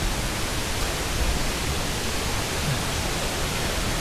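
Steady rushing of a waterfall close by, with the falls running strong after heavy rain.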